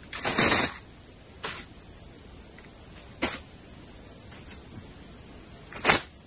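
A steady, high-pitched insect drone from the surrounding forest. A short louder noise about half a second in and a few brief sharp clicks later stand out over it.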